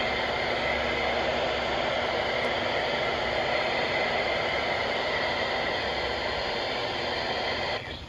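Weather alert radio giving out steady static hiss: the NOAA Weather Radio signal has dropped out. The hiss cuts off just before the end as the broadcast comes back.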